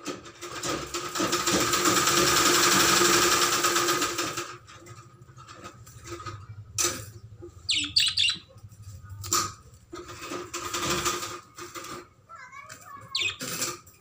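Budgies fluttering their wings inside a small wire cage, a loud flapping for the first four seconds or so and again briefly about ten seconds in. Between the bursts come a few short, high budgie chirps and some sharp clicks.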